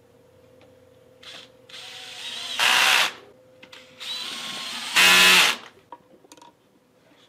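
Cordless drill driving screws through a rack's posts into a tiger-maple shelf. It runs twice, about two seconds apart, and each run ends in a short, much louder stretch.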